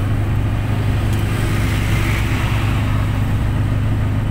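Steady engine hum and tyre-and-wind road noise from a vehicle travelling along a paved road, rising slightly about halfway through. A white box truck draws alongside close by near the end.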